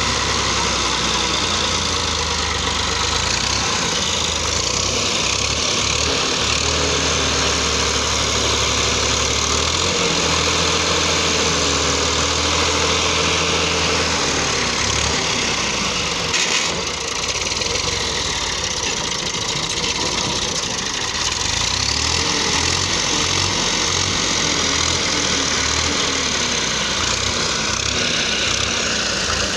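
Tractor's diesel engine running, its speed rising and falling, as it pulls a tipping trailer with the bed raised. A brief sharp click about halfway through.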